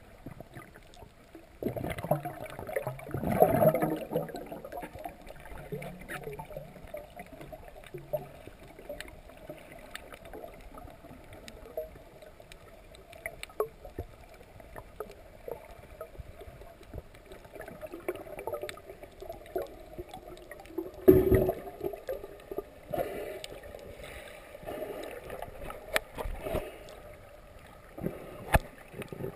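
Muffled underwater water noise heard through a GoPro's waterproof housing: sloshing and bubbling, with louder swishes about 2 to 4 seconds in and again about 21 seconds in, and a scatter of sharp little clicks.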